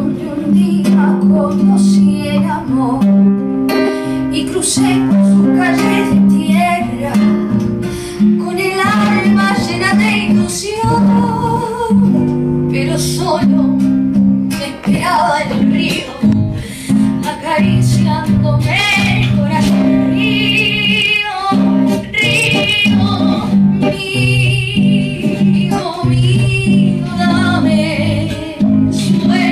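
A woman singing a folk song with vibrato, accompanied by a single acoustic guitar playing bass notes and chords.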